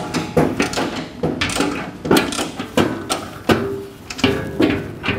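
Steel garage cabinet parts and mounting posts clanking as they are fitted together by hand: a quick, irregular run of about a dozen sharp metal knocks, some ringing briefly.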